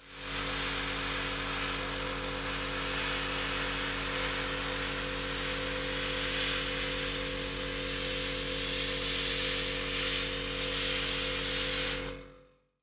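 Airbrush spraying: a steady hiss of air over the low, even hum of its compressor, while a light amber tint is applied to the side dot markers.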